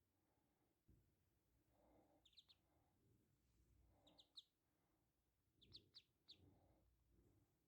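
Three-day-old ducklings peeping faintly: short, high peeps in quick clusters of two or three, repeated a few times.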